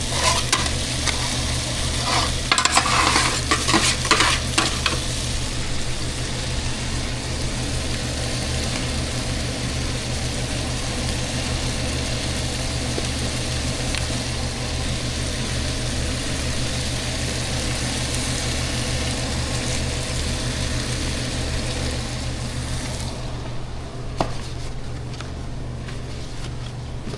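Food sizzling and frying in a hot pan, with a burst of utensils clattering and stirring against the pan about two to five seconds in. The sizzle thins out near the end.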